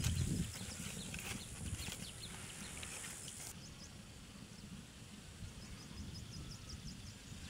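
Wood fire crackling, with scattered sharp pops over a faint hiss. The sound changes abruptly about three and a half seconds in to quieter surroundings with faint, quick high ticks.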